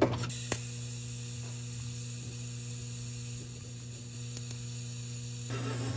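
TIG welding arc on a steel bicycle fork: a steady hiss over a low electrical hum, with a sharp click about half a second in as the arc strikes; the hiss stops about five and a half seconds in.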